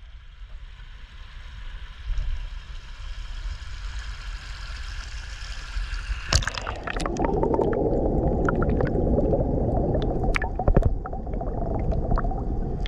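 Water rushing over a small creek cascade, heard through a waterproof camera case. About six seconds in, the camera goes underwater and the sound becomes a louder, muffled churning of water and bubbles, with scattered clicks and knocks of the case.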